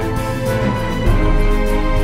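Orchestral theme music with sustained notes; a deep bass swells in about a second in.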